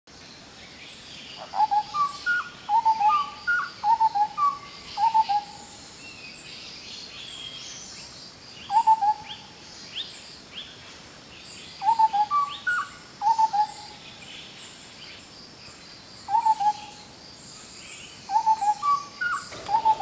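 Indian scimitar babbler calling: phrases of two to six short, clear whistled notes, lower notes alternating with higher ones, repeated every few seconds. Fainter high chirps of other birds run underneath.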